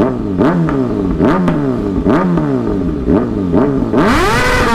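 Motorcycle engine with a loud aftermarket muffler being revved in place: a string of quick throttle blips about twice a second, then about four seconds in a longer rev climbing to high revs and held.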